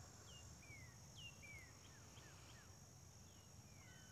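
Faint outdoor ambience: birds give short, quick, downward-sliding whistled chirps again and again over a steady, high-pitched insect drone.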